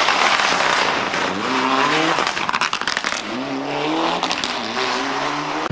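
Rally car's engine revving hard as it drives through a corner, its pitch rising in two sweeps as it accelerates through the gears, with a quick run of sharp crackles between the sweeps.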